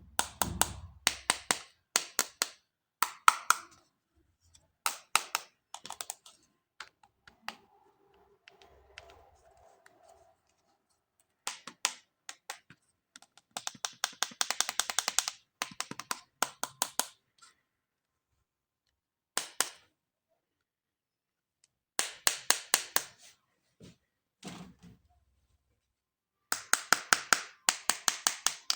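Runs of rapid, sharp clicking and tapping from hands handling plastic toys and their packaging, each run lasting a second or two with pauses between.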